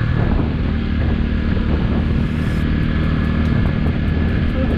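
Motorcycle engine running steadily under way, with wind and road noise over it and a thin steady whine.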